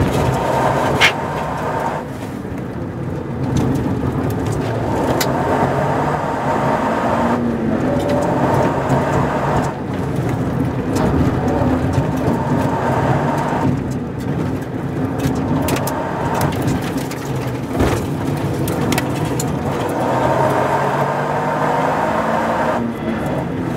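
Toyota GR Yaris's turbocharged 1.6-litre three-cylinder engine heard from inside the cabin while driven hard, its revs climbing and then dropping several times through gear changes and lifts, over steady tyre and road noise.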